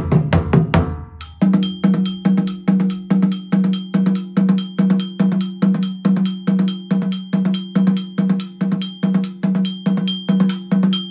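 Kenkeni, the smallest West African dunun drum, played with a stick in a steady rhythm of about two and a half strokes a second. Its pitched note is the loudest sound, with the ring of its iron bell over many of the strokes. For about the first second, lower and faster drumming is heard before the kenkeni part takes over.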